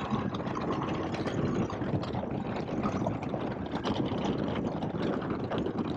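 2021 Indian Scout Bobber Sixty's V-twin engine pulling steadily as the bike accelerates up through the gears toward fifth, heard through a helmet-intercom microphone.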